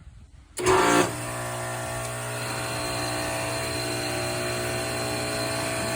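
Electric pressure washer kicking on: a loud burst about half a second in as the trigger is pulled, then the motor and pump running steadily with a strong low electrical hum.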